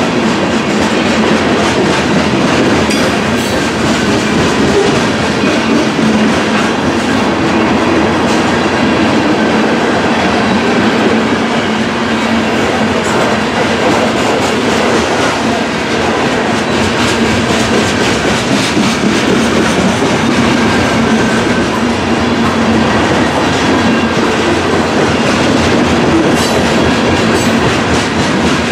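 Loaded covered hopper cars of a freight grain train rolling past, their steel wheels clattering over the rail joints in a steady, continuous rumble.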